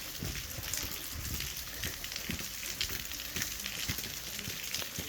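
Heavy rain falling, with many irregular drops pattering close by over a steady hiss.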